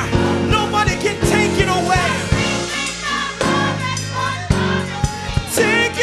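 Church music: singing voices over a band, with low bass notes and a steady drumbeat.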